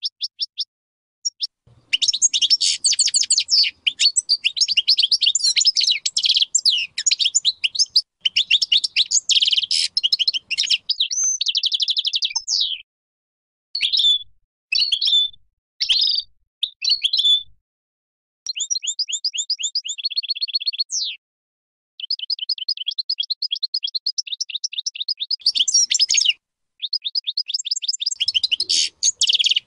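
Major-race European goldfinch (Stieglitz Major) singing: long runs of fast, high twittering and trilled notes broken by short pauses. Around the middle there are a few separate short notes, then a quicker trill, before the twittering song resumes.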